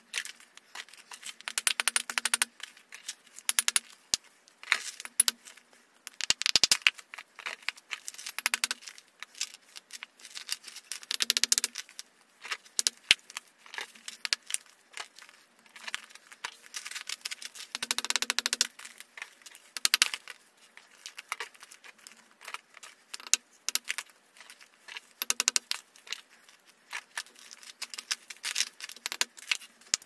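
Block of soft chalk being crushed and broken apart by gloved hands: dense crackling crunches in irregular bursts every few seconds, with small loose flakes clicking and rattling between them.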